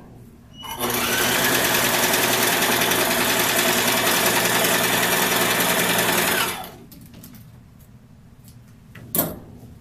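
Electric home sewing machine running steadily for about six seconds, its motor speeding up as it starts and slowing as it stops. A single sharp click near the end.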